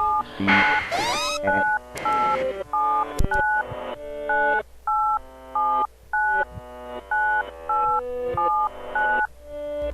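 Telephone keypad touch tones, each a pair of steady beeps sounding together, played in a quick rhythmic run of about two a second and mixed with lower electronic notes into a tune.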